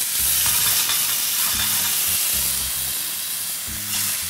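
Shrimp and hogao (tomato-onion sofrito) sizzling steadily in oil in a very hot frying pan.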